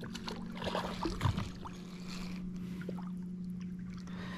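A small boat's motor humming steadily at one low pitch, with a few light knocks and handling sounds in the first second and a half.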